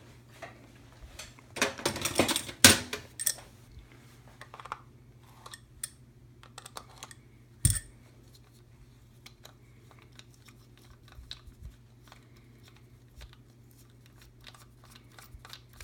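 Small clicks, taps and clatter of a guitar effects pedal and its parts being handled on a workbench, with a burst of louder rattling about two seconds in and one sharp knock near the middle. A faint steady low hum runs underneath.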